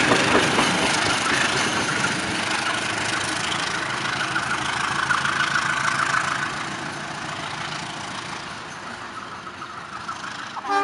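Two CC201 diesel-electric locomotives hauling a single carriage, their diesel engines running and wheels rolling on the rails as the train moves away. The noise drops about six seconds in and keeps fading.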